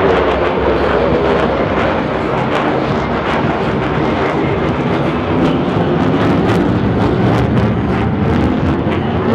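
F-35B fighter jet's engine in afterburner passing overhead: a loud, steady jet rumble with a dense crackle running through it.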